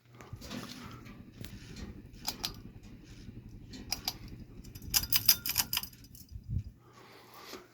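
Harbor Breeze 42-inch ceiling fan running with a low hum and irregular clicking and rattling, with a quick run of clicks about five seconds in.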